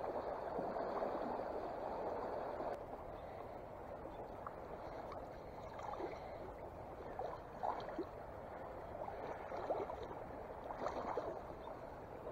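Running water of a mountain creek: a steady rushing hiss from a riffle that drops quieter about three seconds in, giving way to softer flowing water with scattered small gurgles and clicks.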